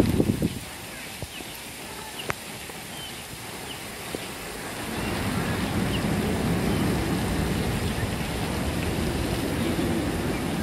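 Suburban outdoor ambience with faint bird chirps over a steady hiss. A short low thump comes at the very start, and about halfway through the low rumble of a passing road vehicle builds and holds.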